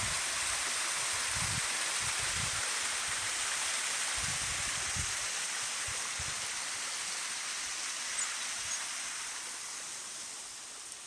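Waterfall rushing steadily, growing gradually fainter over the last few seconds, with irregular low thuds in the first half.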